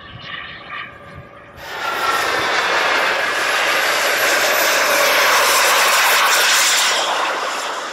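Small gas-turbine engine of a large radio-controlled jet, whining at low power, then spooling up sharply to a loud jet roar about two seconds in as it accelerates down the runway. The roar eases off near the end.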